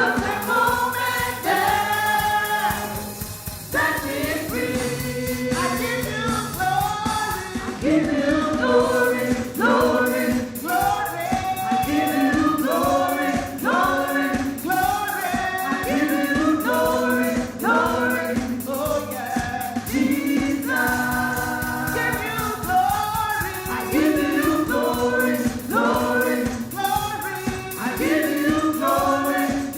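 Church choir and congregation singing a gospel worship song over a steady beat and bass accompaniment.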